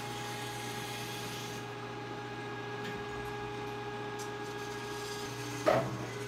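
Steady electric machine hum of several constant tones, with one sharp knock about five and a half seconds in.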